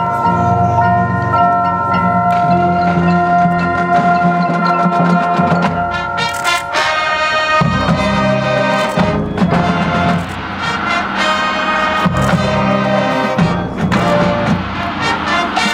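Live high school marching band playing, brass and mallet percussion holding sustained chords. About six seconds in, sharp percussion hits come in and the full band plays on more densely, with repeated accents.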